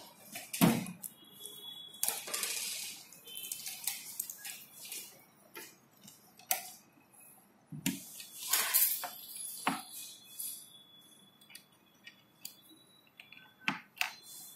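Banana-plug patch cords being pulled from and pushed into the sockets of a digital trainer board, with the cords rubbing against the panel. Irregular clicks and knocks come with some scraping, busiest about two and eight seconds in.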